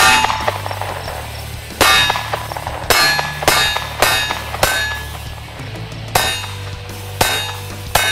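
Pistol shots fired at close range into a steel plate target, about nine at irregular intervals, each with a short metallic clang from the steel. The rounds are RUAG Copper Matrix NTF frangible ammunition, made to break up on the plate rather than ricochet.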